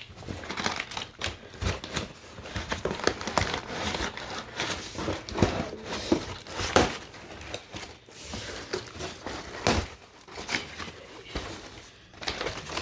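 Packaging being opened and handled: crinkling and rustling of packing material with irregular sharp clicks and tearing sounds.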